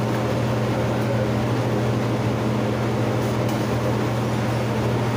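A steady low machine hum, even throughout.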